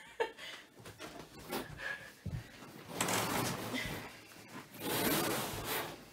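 A heavy mattress being shoved and dragged against a wooden bed base: two long rubbing, scraping rushes, with a low thump about two seconds in.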